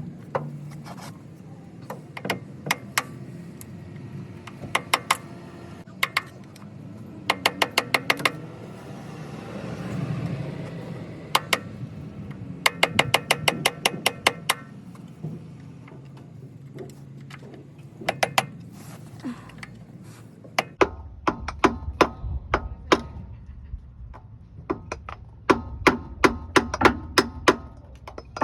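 Fast runs of sharp metal-on-metal taps and clicks with a slight ring, plus scattered single taps, as the old extension housing seal is worked out of the transmission tail housing. A low steady hum starts about two-thirds of the way through.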